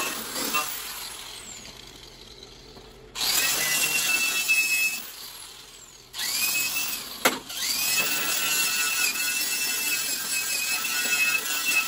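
Handheld angle grinder working on a steel mower deck. It winds down at first, starts again about three seconds in and rises quickly to a steady high whine, winds down, then starts once more about six seconds in and runs on, with a sharp clack about a second later.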